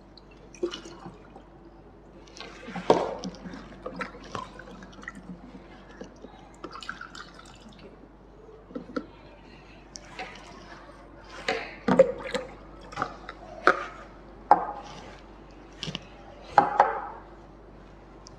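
Coloured water being poured into a plastic bottle, with irregular splashes and drips and knocks from handling the bottle.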